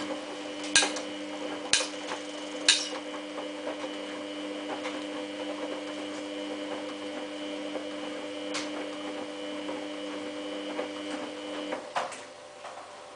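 Samsung WF8804RPA washing machine running its prewash with a steady mechanical hum, broken by a few sharp clicks in the first three seconds and once more later. The hum cuts off about 12 seconds in.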